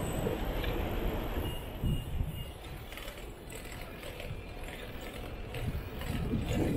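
City street noise heard from a moving bicycle: a steady low rumble of wind and road noise, with a few faint short high beeps about two seconds in.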